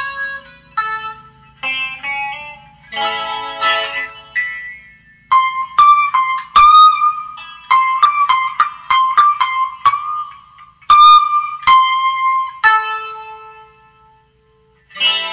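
Fanner Thinline Pixelator electric ukulele played through a Sound City Master Lead 50 amp and speaker cabinets. It opens with chords and picked note clusters, then a quick run of sharply plucked single notes, and ends on a held note that fades out. A new strum comes in at the very end.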